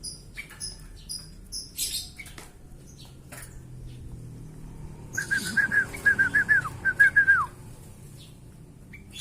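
Caged birds calling: a run of short, high chirps in the first two seconds, then, about five seconds in, a loud series of quick whistled notes that ends on a falling note, with a brief rustle.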